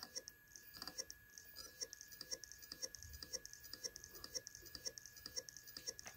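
Seagate IronWolf Pro 10 TB hard drive clicking faintly over and over in a steady rhythm, several ticks a second, as its heads keep seeking without the drive ever coming ready: the drive is dead on arrival, which the owner thinks may be shipping damage.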